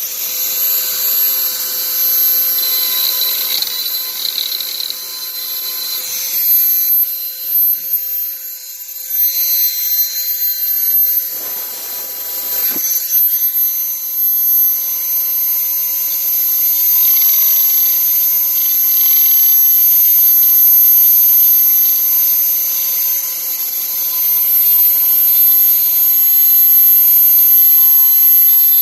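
Dremel rotary tool running at high speed with a steady high-pitched whine, grinding out a heat-hardened, crystallized rubber gasket from a dishwasher air trap. Its level rises and falls as the bit bites, with a brief break about twelve seconds in.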